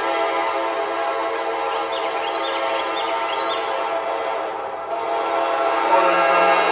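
Locomotive air horn on a CSX GE AC44CW sounding in one long continuous blast. It dips briefly about three-quarters of the way through and comes back louder near the end.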